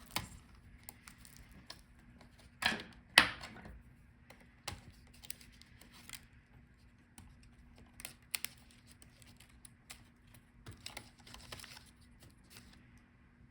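Scattered small clicks and taps as ribbon-cable and wire connectors are unlatched and pulled from a laptop motherboard, with two louder snaps about three seconds in.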